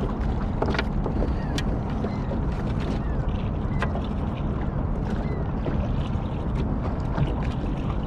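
Wind on the microphone and water noise around an open fishing boat on a river, with scattered light clicks and knocks from handling in the boat.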